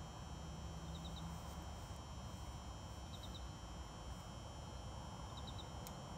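Faint steady background noise with a quick high-pitched triple chirp that repeats about every two seconds.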